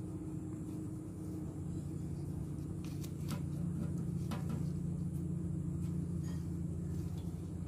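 A steady low hum, with a few faint ticks and crackles as self-adhesive heat-resistant gasket tape is peeled from its backing paper and pressed onto a steel rim.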